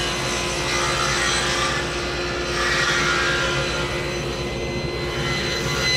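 SawStop 3 HP cabinet table saw with a glue-line rip blade resawing a solid cherry board fed on edge, with the dust collector running. Under the steady motor hum, the cutting noise swells and eases as the board is pushed through the blade.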